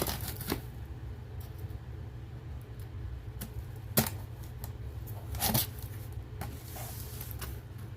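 A package being opened by hand: box and packaging handled and rustled, with a sharp click about four seconds in and a louder rustle about a second and a half later.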